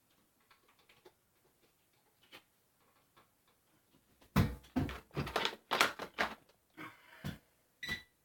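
Faint light ticks, then about four seconds in a run of sharp knocks and rattles, ending near the end with a short ringing clink: hands and tools handling the parts of an old ceiling light fixture as it is taken down.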